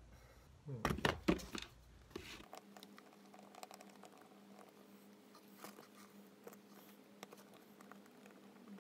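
Small clicks and scrapes of hands working the metal lock and latch parts of a motorcycle's flip-up gas cap during reassembly, with a few sharper clicks about a second in and faint ticks after.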